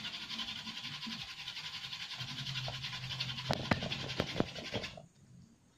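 Wooden hand-drill spindle spun fast between the palms on a wooden fireboard: a steady scratchy friction hiss of wood grinding on wood and hands rubbing the spindle, with a few sharp clicks. The board is smoking as the ember forms. The drilling stops abruptly about five seconds in.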